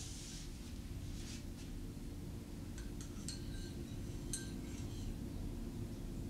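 A metal spoon stirring tea in a ceramic mug: soft scraping strokes near the start and about a second in, then several light ringing clinks of the spoon against the mug between about three and four and a half seconds in. A steady low hum runs underneath.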